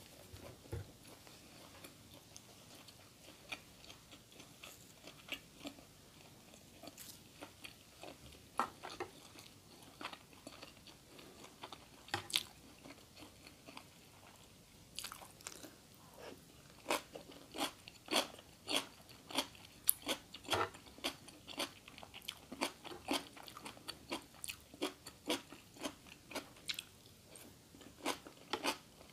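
A person chewing and biting crunchy food close to the microphone: soft, scattered chewing clicks at first, then from about halfway a steady run of crisp crunches at about two a second.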